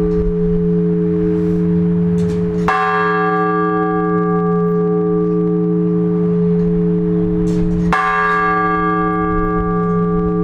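Large Orthodox church bell tolled in slow single strokes for the blagovest, the ringing that announces the start of a service: two strikes about five seconds apart, each leaving a long humming ring that carries on into the next.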